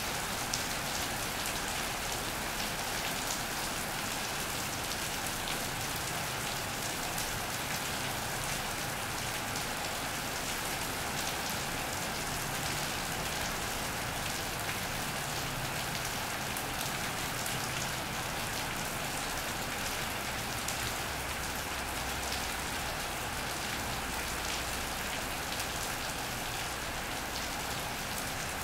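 Steady rain falling on an iron roof and wet paving, with many single drops hitting close by.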